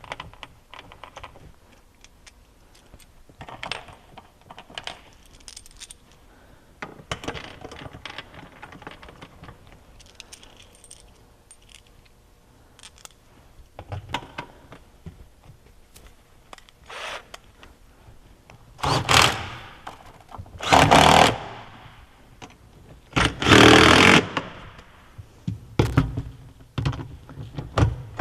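Metal clinks and knocks of hand tools and loose parts while the skid steer is bolted back together, then several loud bursts of about a second each from a power tool driving bolts, starting about two-thirds of the way in.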